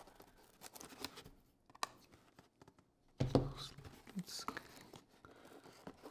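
Cardboard shipping box handled and turned over in the hands: scattered scrapes and taps, with one loud thump about three seconds in.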